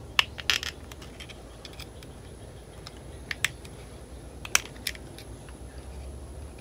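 Metal pick clicking and scraping against a vintage Johnson outboard carburetor's metal body while prying out the old needle-valve packing nuts: scattered sharp clicks, a cluster in the first second and a few more around the middle.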